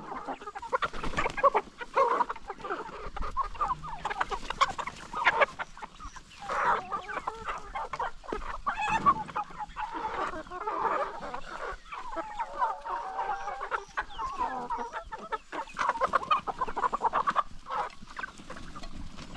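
A large flock of chickens clucking continuously as they crowd in and feed on leftover ugali scraps.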